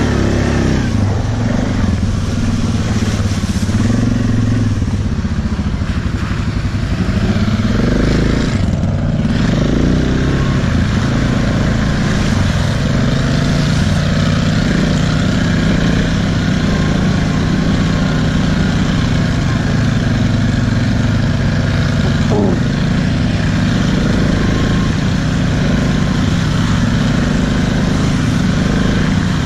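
Quad bike (ATV) engine running steadily under way on a dirt trail, with a brief rise in pitch about two-thirds of the way through.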